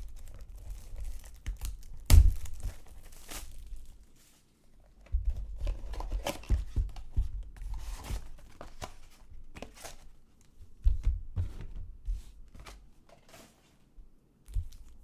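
Packaging of a sealed box of trading cards being torn open and crinkled by hand, with irregular rustles, scratches and handling knocks, a sharp knock about two seconds in.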